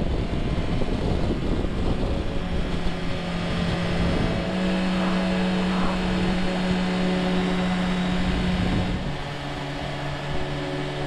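Motorcycle being ridden at road speed: engine running with wind rush. About four and a half seconds in, the engine settles into a steady hum.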